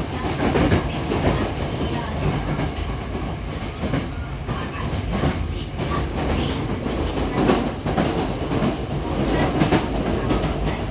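In-car running noise of a Yokohama Municipal Subway 3000S electric train, heard in motor car DeHa 3545: a steady rumble of wheels on rail with irregular clacks as the wheels run over the track.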